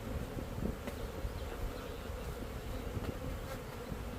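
Many honeybees buzzing together in a steady hum.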